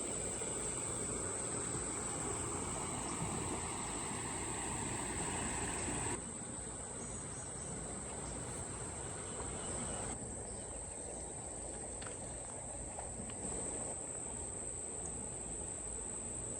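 Insects, likely crickets or katydids, keep up a steady, high-pitched chorus over faint outdoor background noise.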